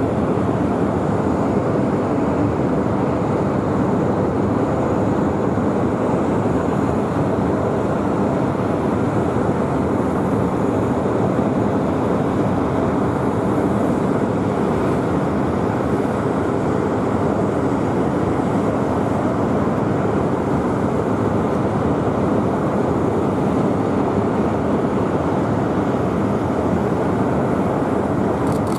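Jet engine rumble from an HAL Tejas fighter's single General Electric F404 turbofan during a flying display, a steady, even roar with no clear rise or fall.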